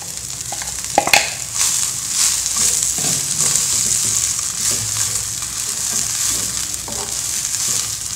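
Fresh mint leaves sizzling as they sauté in hot oil in a nonstick frying pan, stirred with a wooden spatula that taps and scrapes the pan. The sizzle swells about a second in and holds steady.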